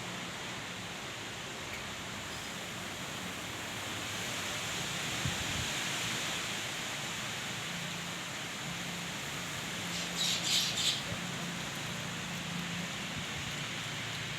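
Steady gusting wind with light drizzle, swelling a few seconds in. About ten seconds in, a bird chirps a few times in quick succession.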